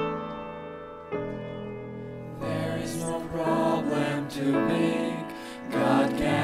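Grand piano playing a slow introduction, then a mixed vocal ensemble of five men and women starts singing over the piano about two and a half seconds in.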